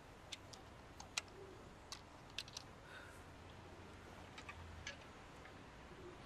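Near silence: faint outdoor room tone with a low hum, broken by a few short, sharp ticks at irregular intervals.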